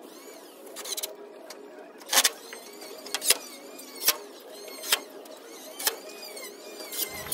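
Pneumatic nail gun firing nails into wooden wall boards: five sharp shots about a second apart, over a steady background hum.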